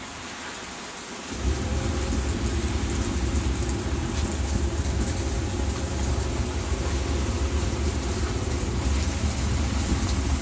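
Decontamination shower spraying water onto a hazmat suit and the tent fabric, a steady rain-like hiss. About a second and a half in, a loud low rumble with a steady hum sets in suddenly and keeps going.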